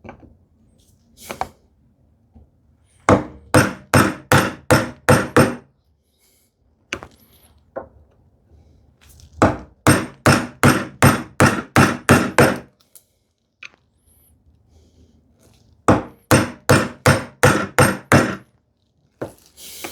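Bevel-edge chisel chopping a mortise in wood, struck in three quick runs of sharp blows about four a second, the middle run the longest, with pauses between.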